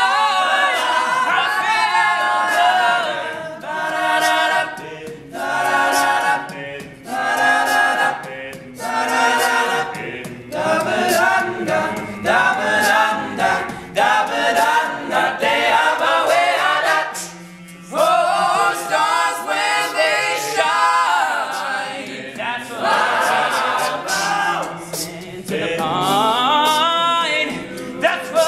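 All-male a cappella group singing, a lead voice over close-harmony backing chords, with no instruments. The backing sings in short punched chords for a stretch.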